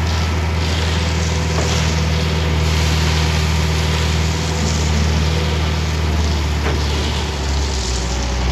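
Diesel engine of a self-loading concrete mixer running steadily; its note drops about seven and a half seconds in.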